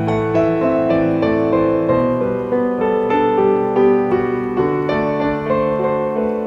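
Soft background piano music: slow, sustained notes and chords.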